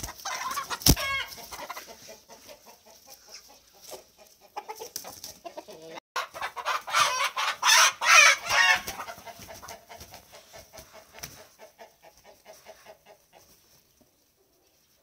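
Domestic chickens, a rooster and a hen, clucking and squawking, with a sharp knock about a second in. The calls are loudest in a burst of squawking about seven to nine seconds in, then give way to quick repeated clucks that fade out near the end.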